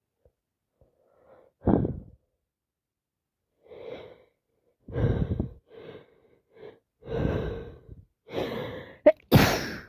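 A person with a heavy cold taking a run of short, catching breaths that come closer together, building up to a loud sneeze near the end.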